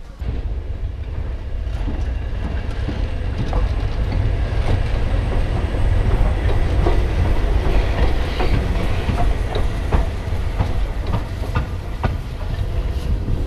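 BR Standard Class 5 4-6-0 steam locomotive 73082 Camelot rolling past close by, its wheels clicking over the rail joints over a steady low rumble, loudest around the middle as it passes.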